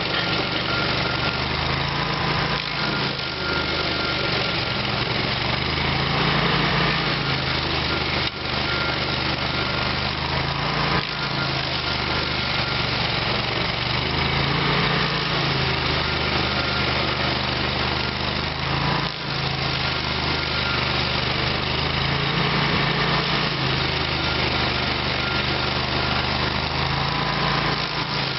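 Petrol engine of a stump grinder running hard. Its note shifts down and back up every few seconds, and there are three sharp knocks.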